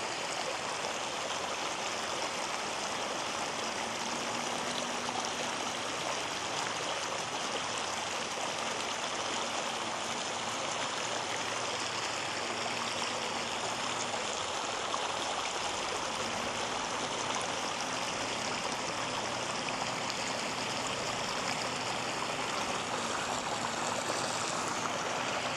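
Water pouring from a small inlet into a pond, a steady, unbroken rush of running water.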